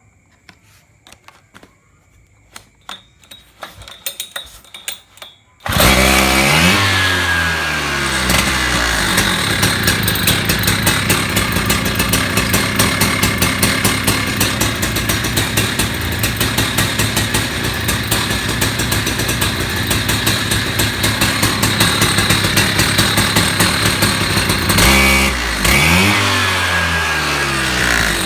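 Husqvarna petrol concrete cut-off saw's two-stroke engine comes in suddenly about six seconds in after some faint clicks, rising in pitch, then runs steadily at high revs. Near the end it briefly drops and rises again.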